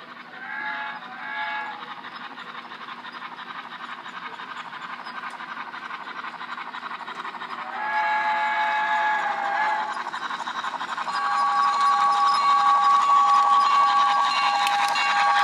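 Sound-equipped HO-scale 2-8-2 Mikado model steam locomotive: two short whistle blasts near the start, then a longer whistle about eight seconds in as it comes out of the tunnel. After that its chuffing grows louder under a steady high tone as it approaches.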